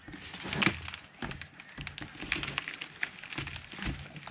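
Potting mix poured from one plastic bucket into another and worked by hand, a dry crackle of many small irregular taps and rustles, loudest a little under a second in.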